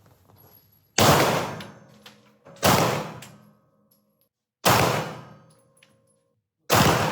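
Four single pistol shots, about two seconds apart, each a sharp crack followed by a decaying echo.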